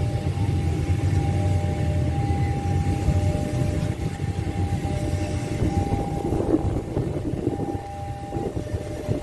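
KRL Commuter Line electric train passing on the rails: a low rumble of wheels and running gear with steady thin tones above it. The rumble eases and turns more uneven in the second half.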